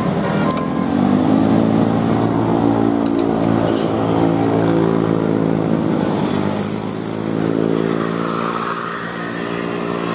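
Bus engine revving and pulling away: its pitch climbs over the first couple of seconds, then holds steady, with a dip past the middle.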